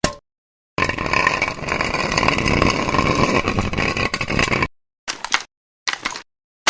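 Metal clattering and scraping with a ringing tone for about four seconds, followed by three short, separate metal impacts near the end.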